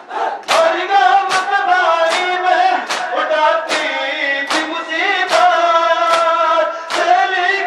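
Men's voices singing a nauha (Shia lament) in a slow melodic line, with hands slapping bare chests in matam in time with it, about five strikes every four seconds.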